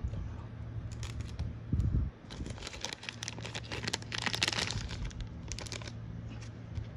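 Clear plastic card sleeve crinkling and crackling in the hands as a top-loaded trading card is worked out of it, thickest about four seconds in. There is one low thump about two seconds in.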